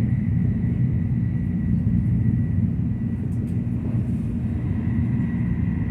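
Shinkansen train running, heard inside the passenger car: a steady low rumble with a faint steady high whine above it.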